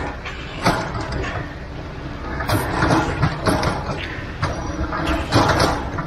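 Wet concrete being dragged with a concrete rake, several scraping strokes, over the steady low rumble of a concrete mixer truck running.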